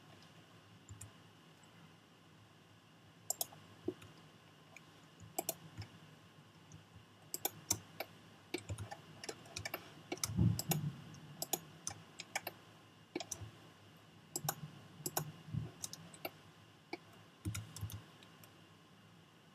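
Irregular clicks of a computer mouse and keyboard. Some come singly, some in quick runs, with a few soft low thumps among them; the loudest is about ten seconds in.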